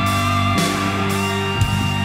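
Background rock music with guitar, held notes under a sustained melody.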